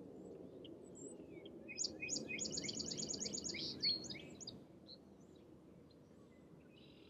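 A songbird sings a rapid trill of repeated high notes, about eight a second, from about two seconds in until a little after four, with a few scattered chirps before it, over a faint low background hum.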